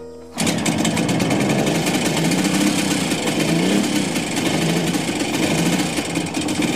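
Kawasaki 500SS Mach III's two-stroke triple engine running unevenly, its revs wavering up and down, after being kick-started from a year's standing.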